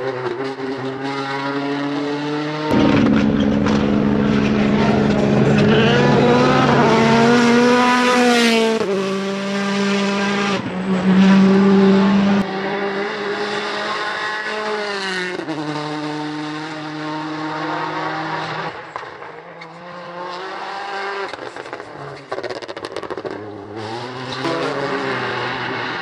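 Hyundai i20 Coupe WRC rally car's turbocharged 1.6-litre four-cylinder engine accelerating hard at full throttle. The revs climb and drop sharply at each upshift, across several passes cut together. It is loudest in the first half.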